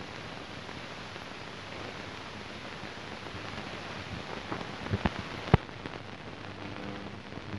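Steady hiss and crackle of an old newsreel film soundtrack, with a few sharp pops about four to five and a half seconds in. Faint steady tones come in near the end.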